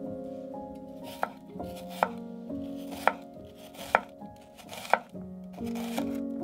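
A knife cutting food on a cutting board in slow, separate strokes, five cuts about a second apart, over soft background music.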